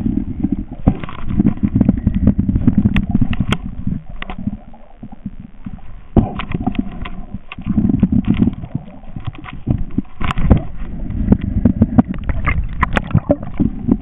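Muffled underwater rumbling and knocking picked up by a camera in a waterproof housing as it moves through the water, with scattered clicks from handling. It eases into a quieter lull about four seconds in, then picks up again.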